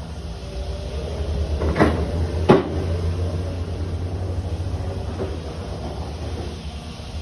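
A truck engine running with a steady low rumble, with two sharp clunks about two seconds in, less than a second apart.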